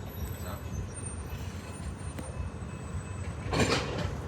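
Sierra Northern Railway freight train led by locomotive #133 rolling slowly, with a steady low rumble and a faint high squeal. A short burst of hiss comes about three and a half seconds in.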